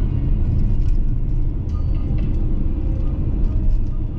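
Steady low road and engine rumble heard inside the cabin of a car driving at speed.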